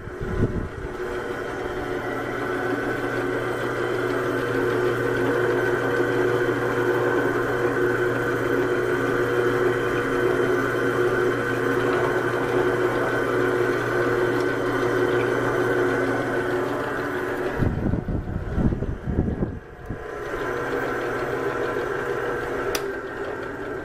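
Duracraft FM 1617 drill press running steadily, its motor and spindle drive giving an even hum and whine. About two-thirds of the way through, a couple of seconds of low rumbling knocks break in before the steady hum returns.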